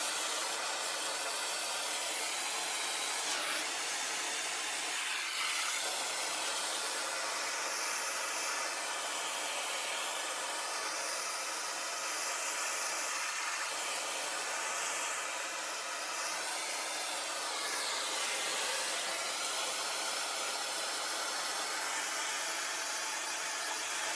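Hand-held gas blowtorch running with a steady hiss, its flame playing over a wooden handle to char it.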